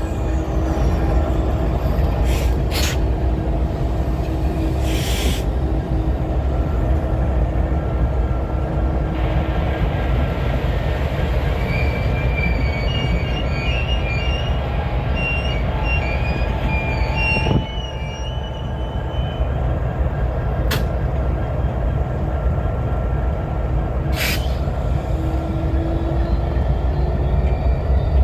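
Two CN diesel freight locomotives, a GE ES44DC and an EMD SD75I, running slowly past with a steady low engine rumble. Thin high wheel squeals come in about halfway through, and there are a few short clanks.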